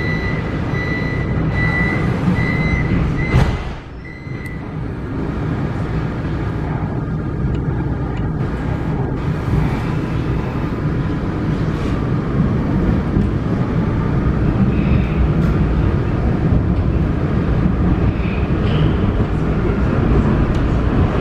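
Interior of a Vienna U-Bahn U1 subway car pulling out of a station. A high beeping tone sounds for the first few seconds and a knock comes about three and a half seconds in. Then the train's running rumble builds gradually as it moves off into the tunnel.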